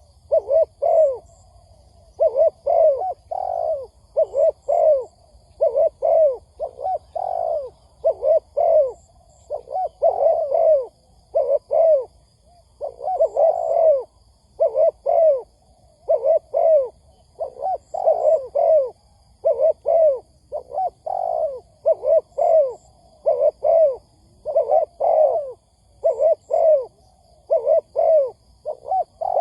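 Spotted dove cooing over and over, in phrases of two to four coos with short gaps between phrases.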